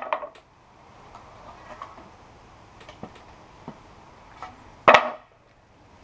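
Hammer knocking on a wooden board as nails are pulled out of old boards: a few light taps, then one loud, sharp knock about five seconds in.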